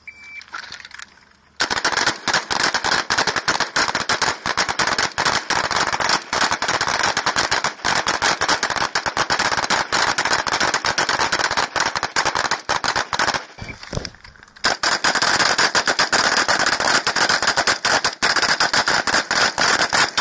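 Rapid rifle fire, shots crowding close on one another in a dense, irregular string that starts about a second and a half in. It breaks off for about a second two-thirds of the way through, then resumes.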